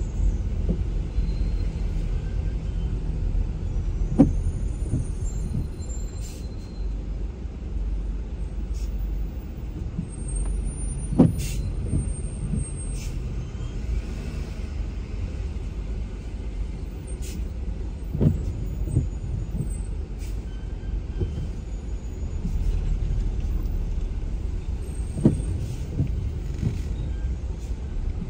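Inside a car crawling in heavy traffic: a steady low rumble of engine and surrounding traffic. About every seven seconds a short knock comes, followed half a second later by a softer one, from the intermittent windshield wipers sweeping the rain-wet glass.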